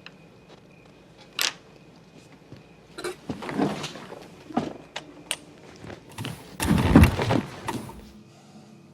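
Unexplained kitchen noises: a sharp knock, then scattered clicks and thumps, building to a burst of heavy bangs and clattering a little past the middle.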